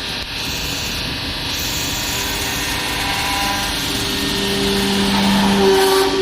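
Hydraulic baler's pump and motor running under a steady mechanical noise. About halfway through, a humming tone comes in and grows louder toward the end, as the hydraulic system works under load.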